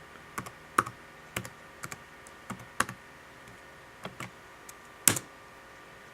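Keys being typed on an Acer netbook keyboard: a password being re-entered after a wrong try, about a dozen separate clicks at an uneven pace, with a louder double click about five seconds in.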